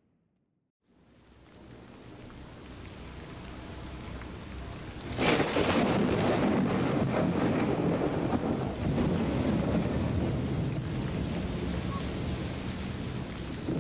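Rain fades in from silence. About five seconds in a sudden crack of thunder sounds, and steady heavy rain follows.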